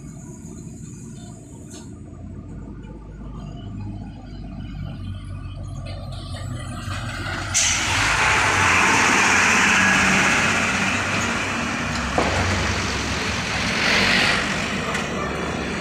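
Diesel trucks passing close by: an engine grows louder, then a loud rush of engine and tyre noise starts suddenly about halfway through as a heavily loaded sugarcane truck goes past, with a second truck passing close near the end.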